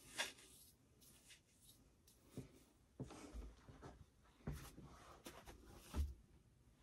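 Faint rustling of hands working styling product through long curly hair, with a few soft knocks and thumps, the sharpest just after the start and one about six seconds in.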